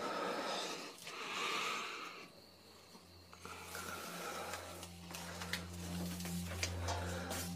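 A man breathing heavily, two long breaths, then a low, steady music drone swells in from about three seconds.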